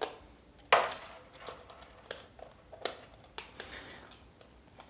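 Sharp plastic clicks and knocks, about half a dozen, the loudest about a second in: a toy drone's plastic remote controller being handled while its screw-fastened battery cover is worked open.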